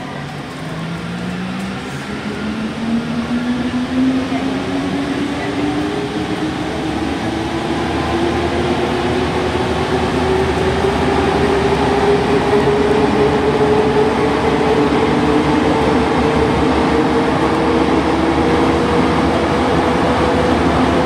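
Alstom NS-93 rubber-tyred metro train pulling away from a station. Its traction motors whine in a tone that rises steadily in pitch as the train accelerates, while the running noise builds and grows louder.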